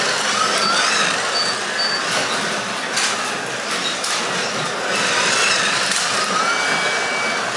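1/24-scale Carrera Digital slot cars running on a plastic slot track: the electric motors whine over a steady rumble and rattle of the cars in the track. The whine rises in pitch about a second in and again near the end as a car speeds up.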